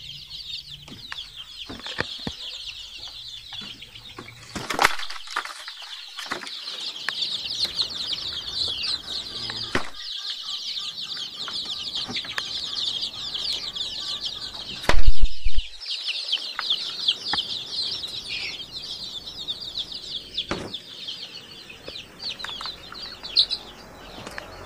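A crowd of newly hatched chicks peeping continuously in a brooder, many short high calls overlapping. A few sharp knocks sound, and about fifteen seconds in comes one loud thump, the loudest thing heard.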